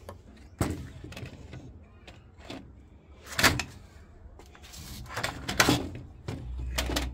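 Handling noise: several sharp knocks and scrapes of a washing machine control board and its plastic parts being handled, the loudest about three and a half seconds in. A low hum comes in near the end.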